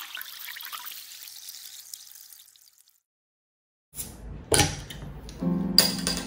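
A hissing, water-like noise fades away, then after a second of silence a glass beer bottle and drinking glass are knocked and clinked against a table. About halfway through, background music with piano comes in under them.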